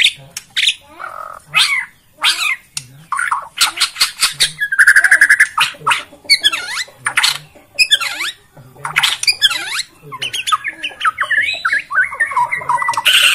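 White-rumped shama (Bornean murai batu) singing a loud, varied song of fast sharp whistles, chips and rattling trills, with a longer held whistle about five seconds in.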